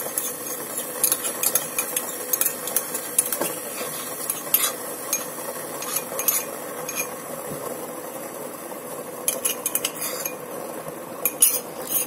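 Light metal clinks and scrapes as a small steel bowl is tapped and scraped against a steel saucepan, tipping crushed ginger into the water, over a steady faint hum.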